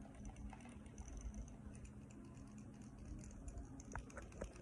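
Faint clicks and ticks as a maple maze box is turned and tilted in the hand, a glass bead knocking against the wood inside. A few sharper clicks come close together near the end.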